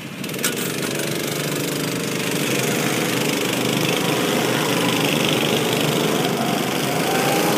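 Small gasoline go-kart engines running steadily, several at once.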